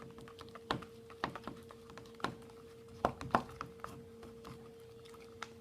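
Irregular light clicks and taps of a utensil against a plastic container as borax solution is added to glue for slime, over a steady faint hum.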